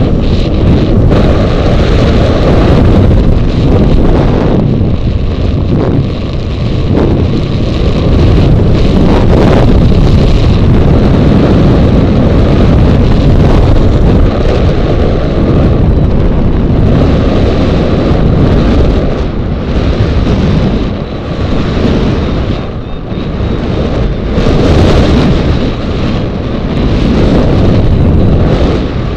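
Wind rushing over the microphone of a hang glider's onboard camera in gliding flight: a loud, continuous buffeting that dips briefly a few times near the end.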